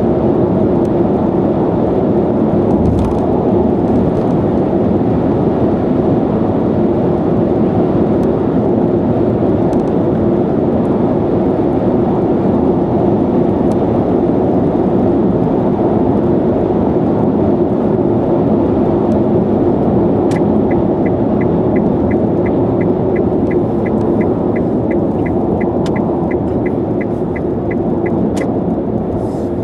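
Steady tyre and road noise inside a Nissan Leaf electric car cruising on an expressway. About two-thirds of the way through, the turn-signal indicator starts ticking, about two and a half ticks a second, for several seconds as the car signals to turn off toward a parking area.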